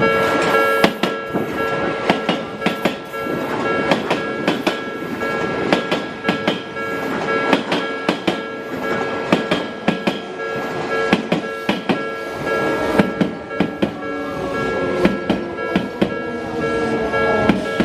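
Japanese railway level-crossing alarm ringing steadily while an Odakyu Line train passes over the crossing, its wheels clicking over the rail joints. In the last few seconds a whine slides in pitch.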